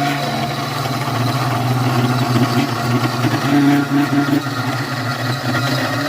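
CNC router spindle running with a 3 mm bit, surfacing a piece of wood: a steady machine hum with uneven cutting noise as the bit works across the surface.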